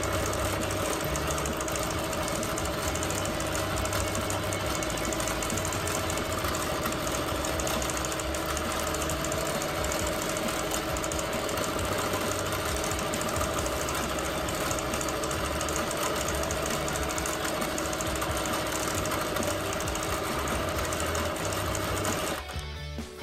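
Bernina Q24 longarm quilting machine running at a steady speed, stitching free-motion quilting with a constant mechanical hum; it stops near the end.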